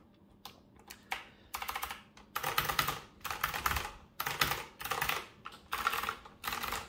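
Azio Retro Classic mechanical keyboard with Kailh Typelit click-collar clicky switches being typed on. From about a second and a half in, it gives quick runs of sharp clicks in short bursts with brief pauses between.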